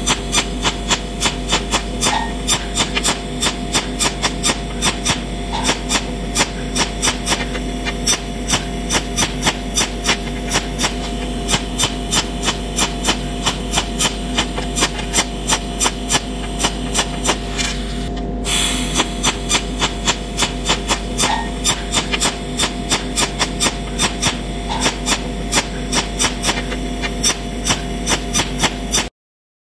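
TIG welding arc, a steady buzzing hum with sharp ticks about three times a second. There is a brief break about two-thirds of the way through, and the sound cuts off just before the end.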